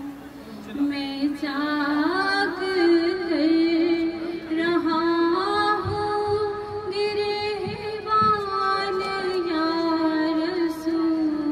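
A woman singing long, held notes that slowly bend in pitch, decorated with quick wavering ornaments.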